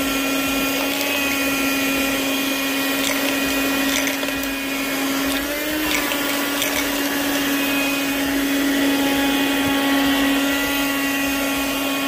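A 12-volt handheld car vacuum cleaner's motor running with a steady whine as it sucks up coins, its pitch wavering briefly about halfway through. A few short clicks come as the coins rattle into the clear dust cup.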